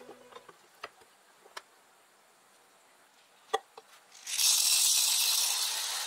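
A few light clicks, one sharper about three and a half seconds in, then granular aquarium plant soil poured through a plastic funnel into a small glass tank, a steady rushing hiss from a little after four seconds.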